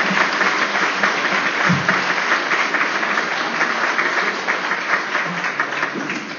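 Audience applauding at the close of a talk, a dense patter of many hands clapping that thins out near the end.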